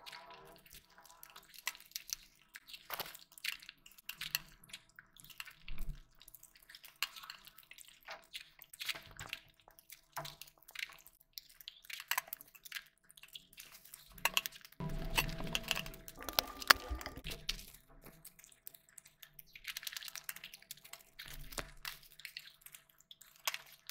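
Close-miked eating sounds: wet chewing and lip smacks, with fingers squishing curry-soaked rice and scraping it on a steel plate, in many short clicks and squelches.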